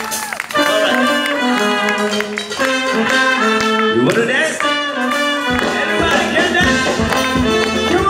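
Live band playing through a PA: a horn section holding chords over electric guitars, congas and a drum kit, with a steady low beat from the bass drum coming in about five and a half seconds in.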